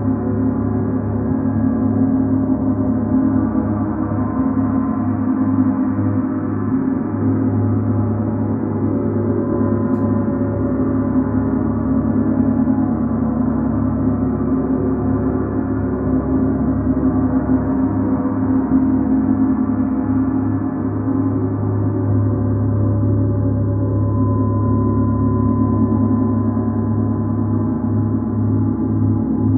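Large hanging gongs, including a Mercury planet gong, played continuously with soft felt mallets, building a dense, sustained wash of overlapping ringing tones that swell slowly without separate strikes.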